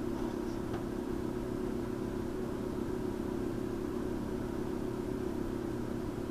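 Steady low background hum with an even noise floor, unchanging throughout.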